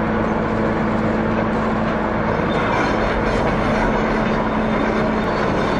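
Several heavy tracked excavators working under load as they lift a broken concrete slab: a dense, continuous machinery rumble with a steady hum over it that fades out near the end.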